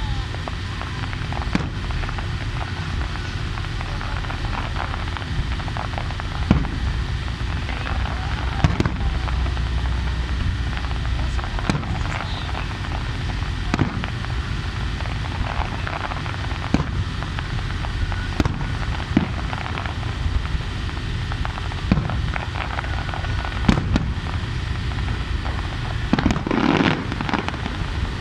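Fireworks display heard from a distance: aerial shells bursting one after another, each a sharp bang every second or two over a steady low rumble. Near the end comes a dense run of rapid pops.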